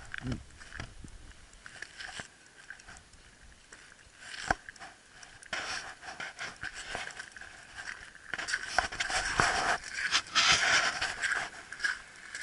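Loose gravel crunching and scraping irregularly under something moving across it. It grows louder and busier in the second half.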